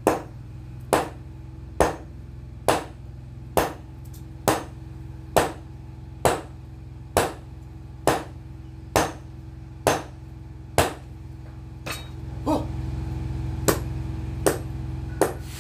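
Sledgehammer blows on hot steel on an anvil, forging a machete blank from excavator breaker-chisel steel: a steady rhythm of about one blow a second, over a steady low hum. After about twelve seconds the hum grows louder and a few lighter, less regular hammer blows follow.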